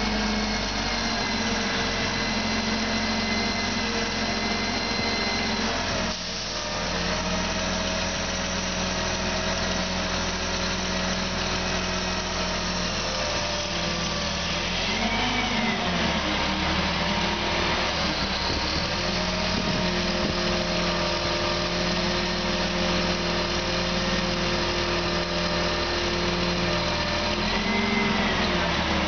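Grove truck crane's diesel engine running steadily while the crane works a suspended load, its pitch dipping and rising briefly about halfway through and again near the end.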